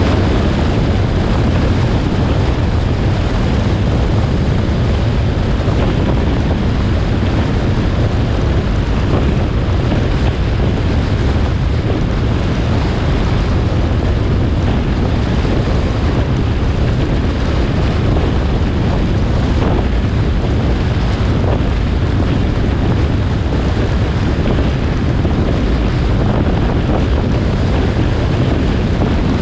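Steady wind rush on the microphone of a motorcycle cruising at highway speed, with the bike's running and road noise underneath; a constant deep rumble with no change in pace.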